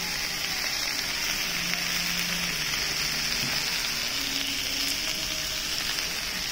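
Lamb and vegetables sizzling steadily on a hot cast-iron Genghis Khan (jingisukan) grill pan, an even high hiss.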